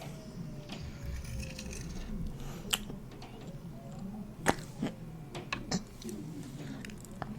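Close-miked eating sounds: a few sharp clicks and crunches, scattered and irregular, the loudest about halfway through, over a faint low hum.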